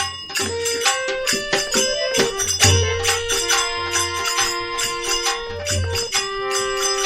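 Instrumental interlude of a Rajasthani folk bhajan: held melody notes over low drum beats and rapid jingling percussion.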